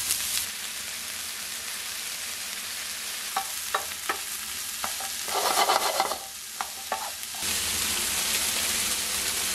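Chopped red onion, ginger and garlic sizzling in oil in a nonstick frying pan, stirred with a wooden spoon that knocks against the pan a few times. There is a louder scraping rush of stirring about halfway through, and the sizzle grows fuller near the end.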